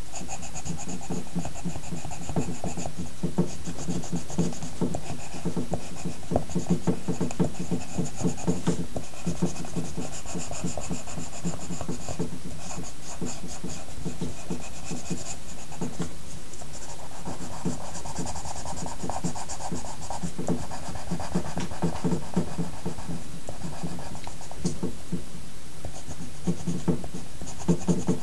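Pencil scratching on paper in quick, continuous back-and-forth shading strokes.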